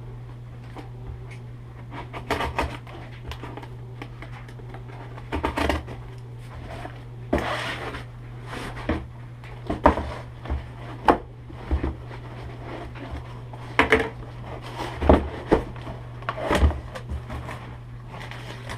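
A cardboard shipping box being opened and its packaging handled: irregular knocks, scrapes and rustles of cardboard and wrapping, with a steady low hum underneath.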